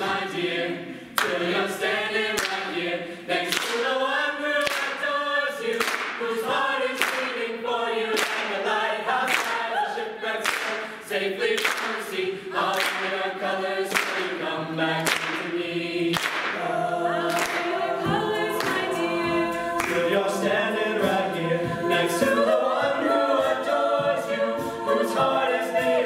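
Mixed-voice a cappella group singing in close harmony, with a sharp percussive hit on each beat about once a second.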